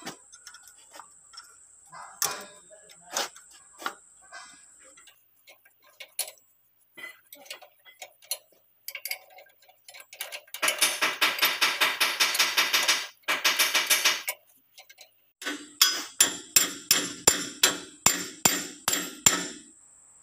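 Hand tools working on a tractor's brake assembly: scattered metal clicks, then a few seconds of rapid clicking, then about a dozen sharp clicks at two or three a second.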